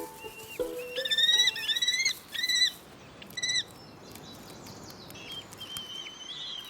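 Kestrels calling: a quick run of shrill, repeated notes in the first few seconds, then quieter.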